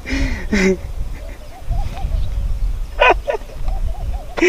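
A man's short, excited, honking squeals and giggles of glee, a few seconds apart, over a steady low rumble.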